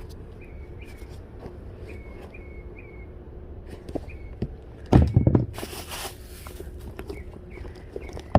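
Sneakers being handled and set down: a cluster of knocks about five seconds in, followed by a short rustle, over a steady low hum. Faint short chirps recur in the background.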